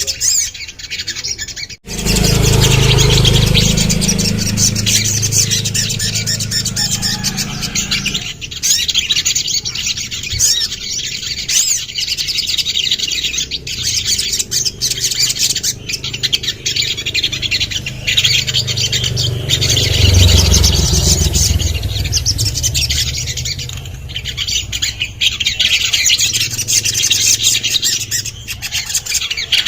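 Little spiderhunter (sogon) calling with rapid, high chirps throughout. A low rumble runs underneath, loudest a few seconds in and again about twenty seconds in, and there is a brief break about two seconds in.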